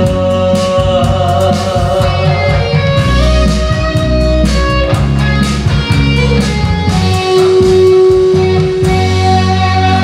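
Instrumental ending of a Korean popular song (gayo) played by a band with no singing, closing on a long held note from about seven seconds in until the music stops at the very end.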